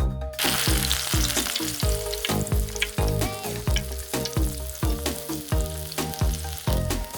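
Food sizzling in hot oil in a miniature frying pan. The sizzle starts suddenly about a third of a second in and keeps going.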